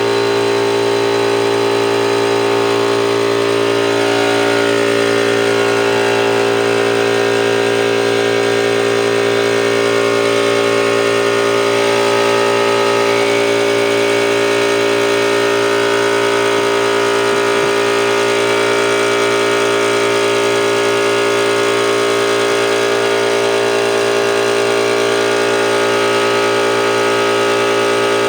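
Portable Goodyear air compressor running steadily with a constant hum. The owners say it is not building enough pressure and take it to be faulty.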